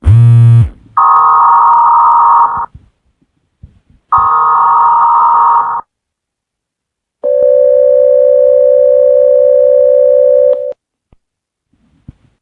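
Mock Emergency Alert System signal: a short buzzy burst, then two harsh electronic header bursts of under two seconds each with a gap between, then a steady single-pitched attention tone lasting about three and a half seconds that cuts off abruptly.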